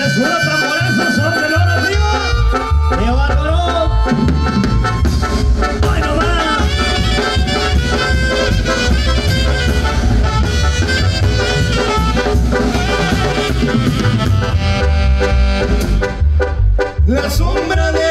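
Live tamborazo band music, instrumental, played loud through a PA with a steady low drum beat under the melody; the beat comes in about two seconds in.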